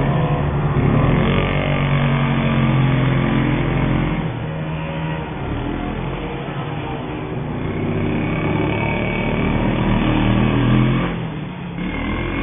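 Small two-stroke petrol engines of 1:5-scale radio-controlled rally cars running and revving, their pitch rising and falling as they accelerate and ease off, with a short lull about eleven seconds in.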